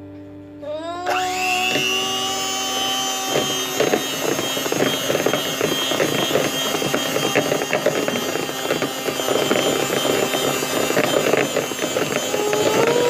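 Electric hand mixer speeding up with a rising whine about a second in, then running fast with its beaters clattering in the bowl as it beats the barley ice cream mixture.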